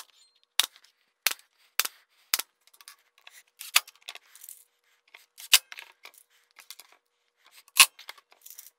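A pneumatic nailer fires five times in quick succession, about every half second, tacking a plastic miter-slot strip to a plywood sled base. In the second half come a few scattered clicks and short bursts as screws are driven into the strip with a cordless impact driver.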